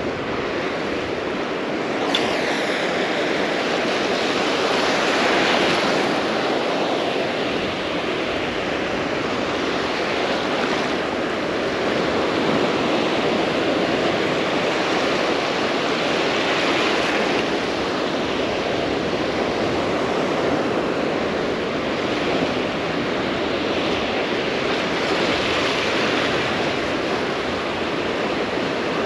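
Ocean surf breaking and washing up a beach: a steady rush of noise that swells and eases in slow surges several seconds apart.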